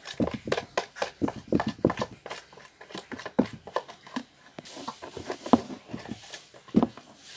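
A stirrer working a thick mixture of glue and body scrub as it clumps into slime in a container, making irregular sticky clicks and taps, a few each second.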